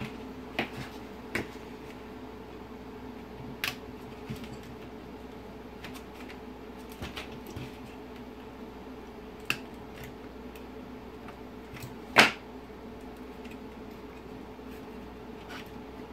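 Scattered small clicks and taps of pliers and fingers working the catches on the metal display cages of an Audi TT instrument cluster's circuit board, with one sharper click about three-quarters of the way through. A steady low hum sits underneath.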